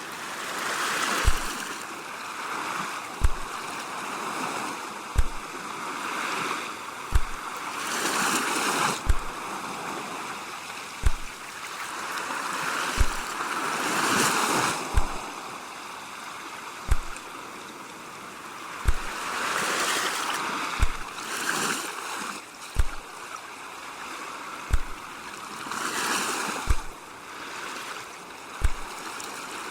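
Ocean waves washing in and receding, the surf hiss swelling and fading every few seconds. A short low thump repeats steadily about every two seconds underneath.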